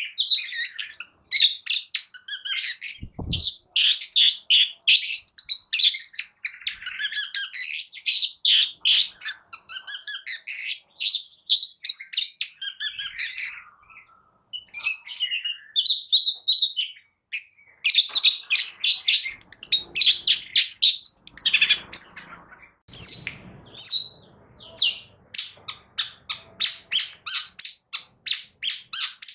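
Long-tailed shrike (cendet) singing a rapid, varied stream of high chattering and whistled notes. It breaks off briefly twice near the middle, then goes into a fast run of repeated notes. There is one short low thump about three seconds in.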